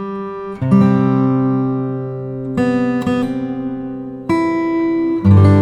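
Background music: acoustic guitar chords, each struck and left to ring, with a new chord about every one to two seconds.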